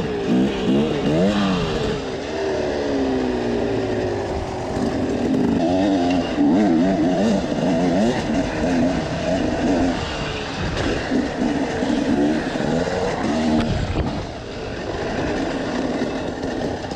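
Husqvarna enduro motorcycle engine under way, the revs climbing and dropping again and again as the rider accelerates along a dirt track.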